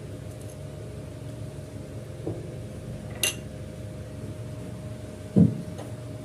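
Small glass bowls handled and set down on a cloth table mat: a light glass clink about three seconds in and a louder dull knock near the end, over a steady low hum.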